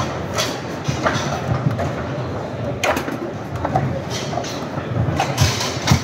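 Foosball table in play: sharp irregular clacks and knocks of the ball striking the plastic figures and table walls and the rods jolting in their bearings, over a steady babble of crowd chatter in a large hall.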